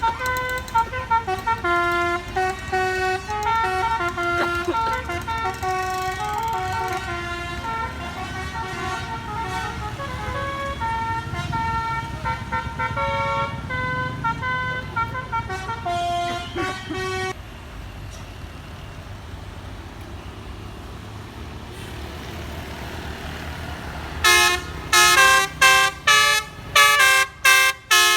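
Bus musical horn (telolet/basuri) playing a long melody of changing notes, then several seconds of bus engine and road noise, then a quick series of short, loud horn toots near the end.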